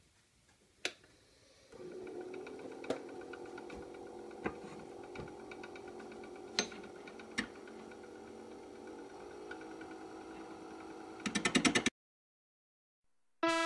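Nova Comet II wood lathe starting up and running steadily with a motor hum, with a few sharp clicks along the way. Near the end comes a short burst of rapid knocking, then the sound cuts off abruptly.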